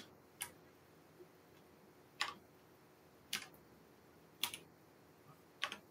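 Sparse computer keyboard keystrokes: single sharp key clicks about a second apart, with two in quick succession near the end.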